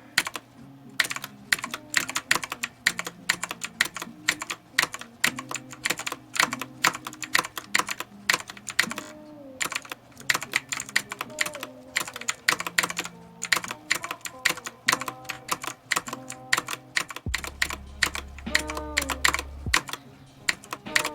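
Typing on a Redragon Kumara K552 mechanical keyboard with clicky Outemu Blue switches: a fast, irregular run of sharp key clicks. A low hum joins underneath for a couple of seconds near the end.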